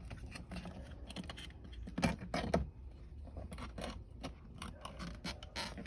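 Irregular small clicks, taps and rattles from hands handling doorbell wires and fitting hardware, with two louder knocks about two seconds in.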